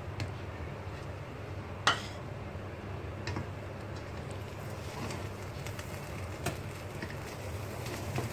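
A slotted spatula scraping and knocking against a cooking pot as cooked biryani rice is dug through and mixed: a few scattered clacks, the sharpest about two seconds in, over a steady low hum.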